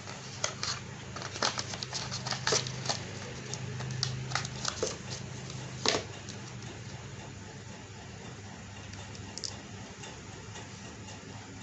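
Cardboard phone packaging being handled: a yellow cardboard insert and box lid are folded and set down, giving a run of light taps and clicks with a sharper knock about six seconds in. After that there is only faint handling.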